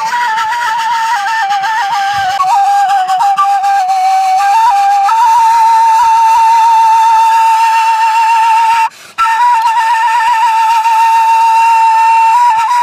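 Kaval, the end-blown shepherd's flute, played solo: a folk melody of quick trills and turns that settles on a long held note with a slight waver. There is a brief pause for breath about nine seconds in, then the tune resumes.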